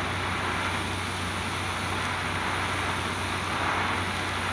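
TIG welding arc at 150 amps burning steadily as filler rod is fed into the weld puddle: an even hiss with a low steady hum underneath.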